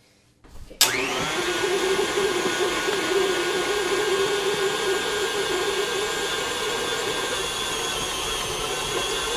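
KitchenAid stand mixer with a dough hook switched on about a second in. Its motor rises briefly to speed, then runs steadily as it mixes flour into dough.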